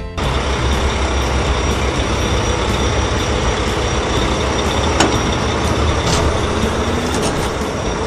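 Heavy diesel engine of a backhoe loader running with a steady low rumble while it digs. A sharp clank comes about five seconds in, and a fainter one a second later.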